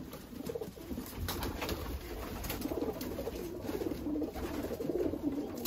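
Homing pigeons cooing inside a wooden loft, a steady low warbling with a few faint clicks.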